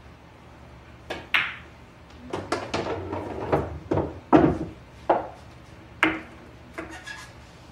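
Pool balls clicking and knocking on a pool table: a string of sharp clicks, a denser clatter about two and a half seconds in, the loudest knock a little past the middle, then a few softer clicks near the end.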